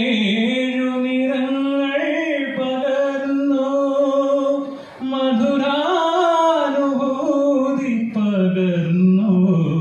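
A young man singing solo into a stage microphone, with no accompaniment. He holds long, ornamented notes that bend in pitch and breaks once for breath about five seconds in.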